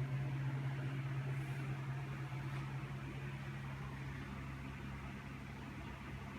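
Steady low hum with a faint even hiss, fading slightly.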